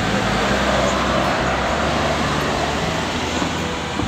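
Steady traffic noise, an even roar of passing road vehicles with a low engine hum under it.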